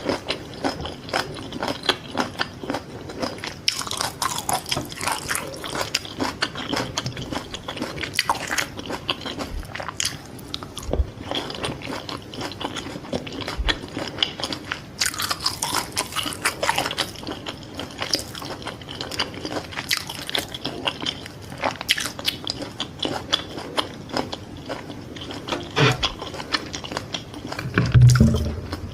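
Close-miked biting and chewing of Vietnamese fried fish balls, a dense run of sharp mouth clicks several times a second. There is a loud low thump near the end.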